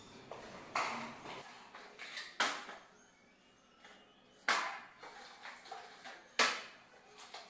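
Steel putty knife scraping wall putty during a second coat, in about four separate strokes roughly two seconds apart, each starting sharply and fading over about half a second.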